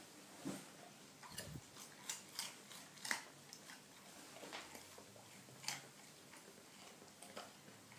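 A dog chewing a raw carrot: faint, irregular crunches and snaps as its teeth break the carrot, one every second or so, the sharpest about three seconds in.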